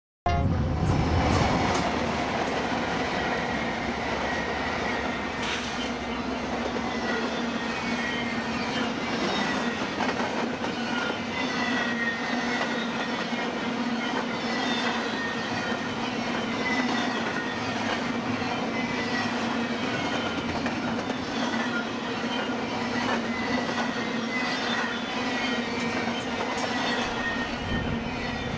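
Double-stack intermodal freight train rolling past: steady rumble of steel wheels on rail, with clicking as wheels cross rail joints and short high wheel squeals recurring throughout.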